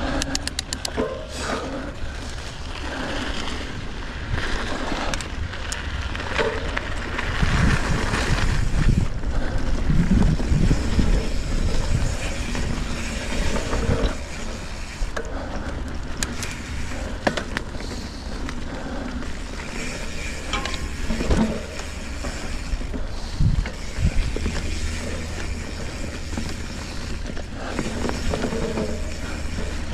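Mountain bike ridden over a wet, sandy dirt trail: wind on the microphone, tyres rolling and the bike rattling over the ground, with a quick run of clicks just after the start and a few single clicks later.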